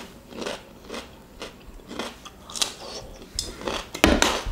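Raw cucumber being bitten and chewed close to the microphone, crisp crunches about twice a second. A louder knock comes near the end.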